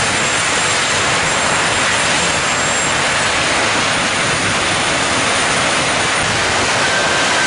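Jet dragsters' turbojet engines running at the starting line: a steady, loud rush of jet noise with a thin high turbine whine above it. Near the end a fainter whistle slowly falls in pitch.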